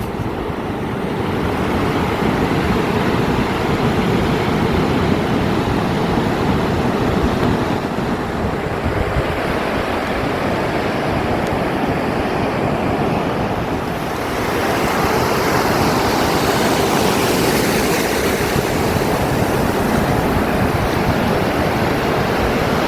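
Surf washing on the shore, with wind buffeting the microphone: a steady rushing noise that dips a little about fourteen seconds in and then swells, brighter and louder.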